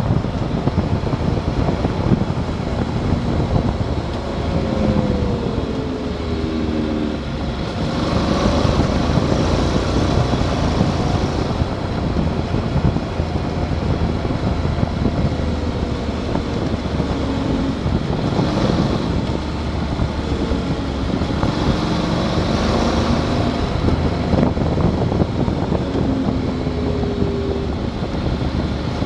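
Motorcycle under way with its engine note rising and falling with the throttle, under a steady rush of wind on the microphone, which grows hissier at times.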